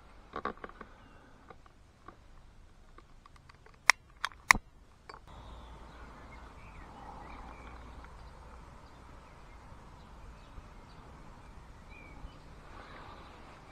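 Garden ambience with faint birds chirping, a few sharp metallic clicks in the first half, and a steady low rumble from about five seconds in.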